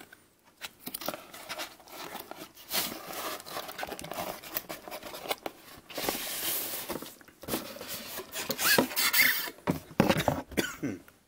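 Cardboard boxes being handled: scraping, rustling and light knocks as a printed box is slid out of a corrugated cardboard shipper, with a longer sliding scrape about six seconds in.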